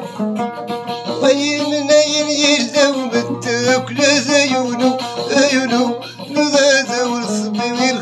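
Moroccan folk music: a loutar (plucked lute) playing a run of plucked notes over a steady low drone, with a voice singing over it.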